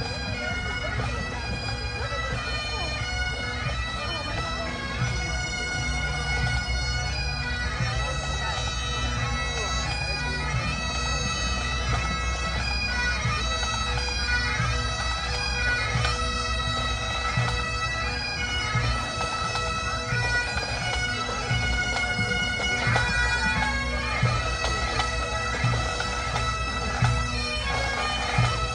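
Bagpipe band playing a tune over a steady drone.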